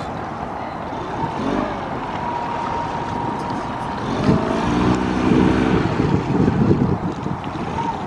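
Wind buffeting the microphone over steady water noise around a small aluminum boat on choppy river water.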